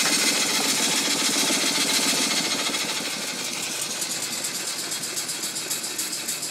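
Small horizontal steam engine running fast, at about 415 rpm, with a rapid, even clatter and chuff, driving a belt to a pump. The beat eases a little about halfway through.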